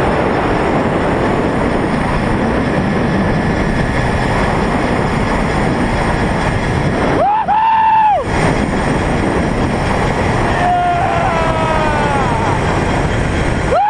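Loud, steady rush of wind over the microphone and the trolley running along the zipline's steel cable during a fast ride. Just past the middle a high held tone with overtones sounds for about a second, and a few falling tones follow near the end.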